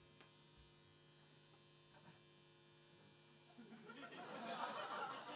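A steady electrical hum from the stage sound system in a hushed room; about three and a half seconds in, the audience begins to chatter, growing louder toward the end.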